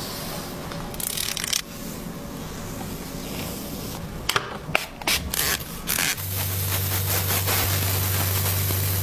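Scratchy rubbing of a stick and brush against hair and scalp during a scalp cleaning. There are a few short clicks around the middle, and a steady low hum joins about six seconds in.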